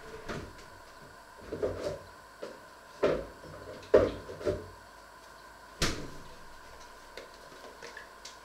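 Kitchen storage door being opened and shut while things are moved about: a series of knocks and bumps, loudest about four seconds in, then a sharp click near six seconds.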